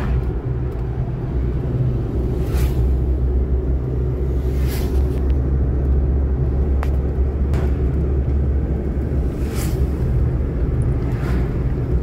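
Car driving along a road, heard from inside the cabin: steady low engine and road rumble, with a few brief soft swishes.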